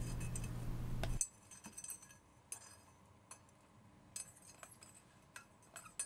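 A steady low hum stops about a second in. After it, sparse faint metallic clinks: leftover zinc dross and steel clips from wheel balancing weights rattling out of a tipped stainless steel crucible onto the block.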